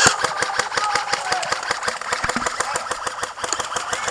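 Airsoft guns firing in rapid bursts: a fast, uneven run of sharp clacks, around ten a second.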